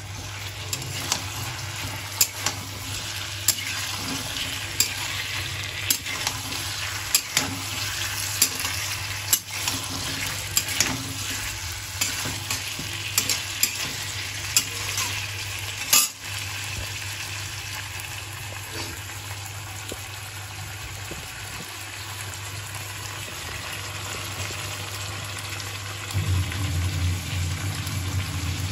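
Chicken, onions and ginger-garlic paste sizzling in a kadai while a metal spatula stirs them over a high flame. The spatula clicks and scrapes against the pan about once a second for the first half, then less often.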